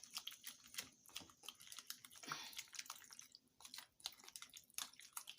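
Faint, irregular small clicks and taps of kitchen utensils being handled, a few each second.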